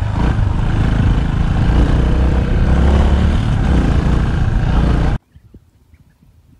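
Yamaha Tricker's single-cylinder four-stroke engine running steadily as the trail bike rides a dirt track. About five seconds in the sound cuts off suddenly, leaving faint, scattered small sounds.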